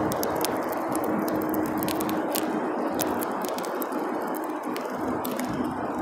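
House finches feeding at close range on a seed tray: irregular sharp clicks of beaks pecking and cracking seed on the tray, over a steady background rush.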